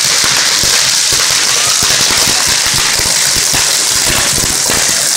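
Fireworks on a torito, a bull-shaped fireworks frame, going off: a steady loud hiss of spark fountains with rapid irregular firecracker pops and cracks, several a second.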